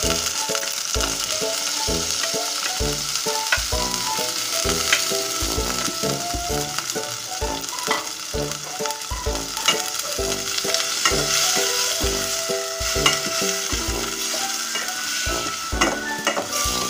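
Pork, tomato, onion and garlic sautéing in a stainless steel pot, a steady sizzle with a spoon stirring through it, over background music with a regular beat.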